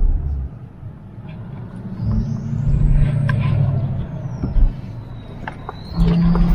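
Motor vehicle engine running, dropping off briefly and picking up again about two seconds in and near the end, with a thin high squeal gliding up and then down in between.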